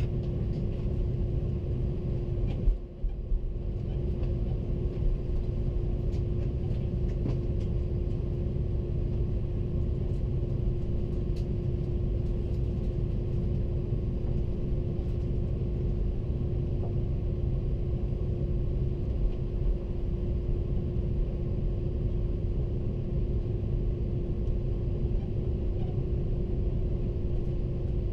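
Airbus A330-300 cabin noise while taxiing: a steady low rumble with a constant hum. A brief bump and dip in the noise comes just under three seconds in.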